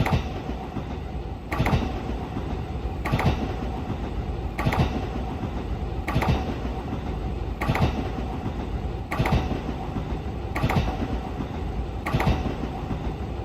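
Train running steadily on rails, its wheels clicking over the rail joints about once every second and a half under a continuous rumble and a faint steady hum.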